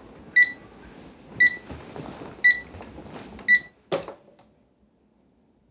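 Digital alarm clock beeping, short high beeps about once a second, four times. About four seconds in, a sharp knock as it is slapped off, and the beeping stops.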